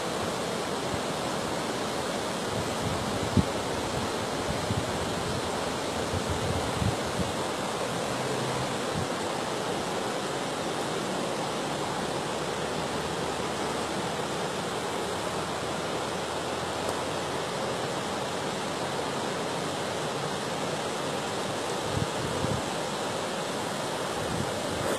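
Floodwater rushing steadily across flooded fields, a constant, even rush of water.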